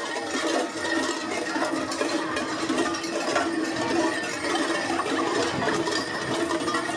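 Many large Perchten cowbells clanging together in a dense, unbroken jangle, with a steady ringing tone over it.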